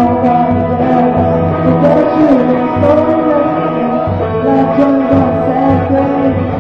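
Loud dance music: a winding melody over a steady bass line.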